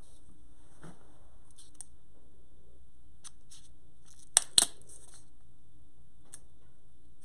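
Handling sounds of a plastic cup of resin being lifted out of a pressure pot and turned in the hands: light plastic clicks and rustles, with two sharp clicks close together about four and a half seconds in.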